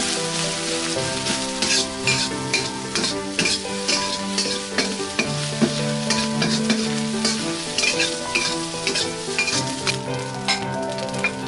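Egg fried rice sizzling in a hot wok while a spatula stirs and tosses it, with frequent short scrapes of the spatula against the pan.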